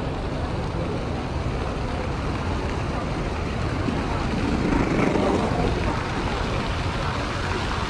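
Steady outdoor noise from a plaza fountain's splashing water jets and wind on the microphone, with a low rumble underneath. It swells briefly about five seconds in.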